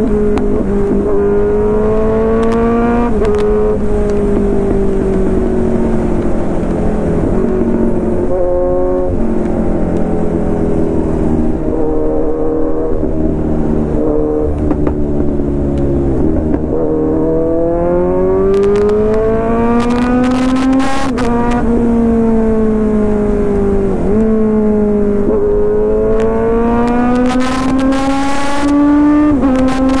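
Kawasaki Z900's inline-four engine through an Arrow full-system exhaust, heard from the rider's seat while riding hard. The revs climb and then drop suddenly at each upshift, with a stretch of lower revs in the middle. Near the end come three quick climbs through the gears, the shifts a few seconds apart.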